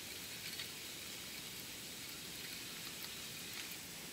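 Faint, steady outdoor background hiss with a few light ticks scattered through it.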